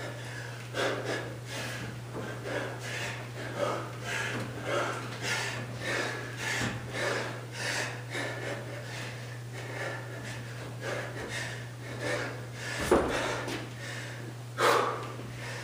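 A man breathing hard in quick, regular puffs, about two a second, while doing kipping pull-ups, with two louder thumps near the end as he drops off the bar and moves on.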